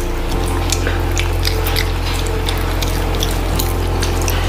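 Close-miked eating by hand: quick wet, squelching clicks of rice and dal being mashed together on steel plates, with chewing and lip smacks. Under it runs a steady low hum.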